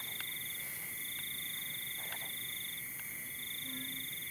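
Night chorus of insects and frogs: a steady high drone with a higher pulsing trill above it that starts and stops in spells of one to two seconds, and a few faint short calls.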